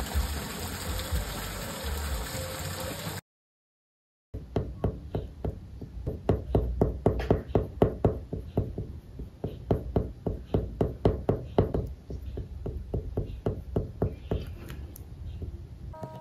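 Rain falling with soft music for about three seconds, then cut off. After a second of silence, an oil pastel is rubbed and dabbed on drawing paper in short, quick strokes, several a second, loudest in the middle.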